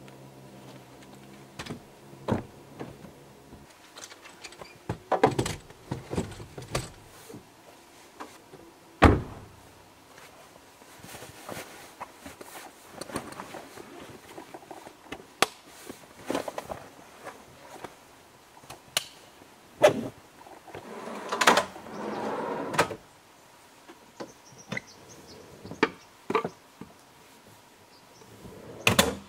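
Camping gear being handled and packed into a 4WD: scattered knocks, clacks and thuds of gear being moved and set down, with a longer stretch of rustling about two-thirds of the way through.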